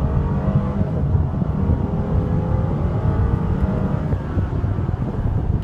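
A Mercedes-Benz SL550's twin-turbo V8 under full-throttle acceleration, heard from inside the cabin: a loud low rumble whose pitch climbs steadily, dropping once at a gear change about a second in before rising again.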